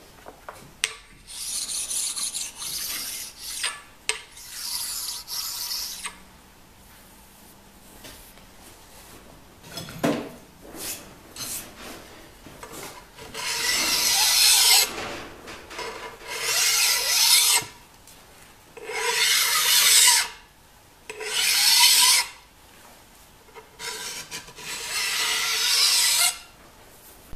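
A hand file drawn in long strokes along the edge of a scraped cast-iron surface grinder way: about seven separate filing strokes, each a second or two long, with pauses between them.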